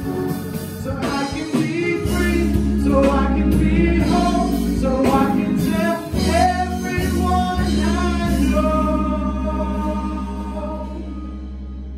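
Gospel singing with instrumental accompaniment: voices sing a melody over a steady bass that comes in about two seconds in. Near the end the singing settles into long held notes and the music grows quieter.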